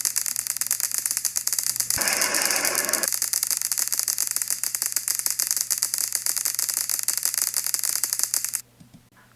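A fast, steady mechanical rattle: a dense run of rapid clicks that grows fuller for about a second starting two seconds in, then cuts off suddenly shortly before the end.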